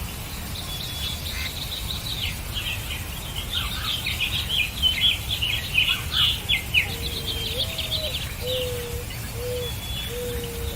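Small birds chirping in quick, dense bursts, busiest in the middle, with a run of short, lower, level calls in the second half.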